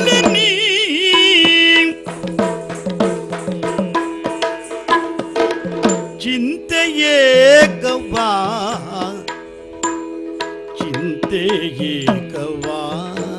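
Yakshagana music: the bhagavata sings long, wavering phrases over a steady drone, with quick drum strokes from the maddale and chande throughout.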